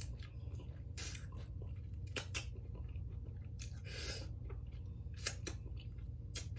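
Close-miked chewing of fried chicken wings, with several short, wet mouth smacks spread about a second apart over a steady low hum.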